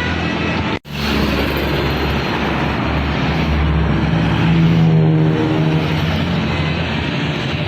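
A bus passing close by on the road: engine running under steady tyre and road noise, the engine note rising and loudest about five seconds in. The sound cuts out for an instant under a second in.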